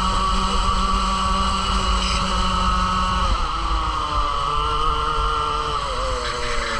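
Two-stroke kart engine heard onboard at racing revs. Its pitch drops sharply about three seconds in as the kart slows for a corner, then starts to pick up again.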